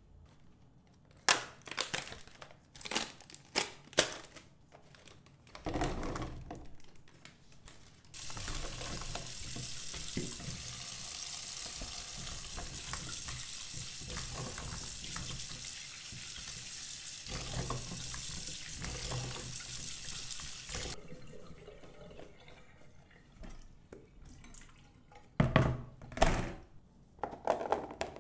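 Kitchen tap running steadily into a sink, turned on about eight seconds in and off about thirteen seconds later. Sharp knocks and clicks come before and after it.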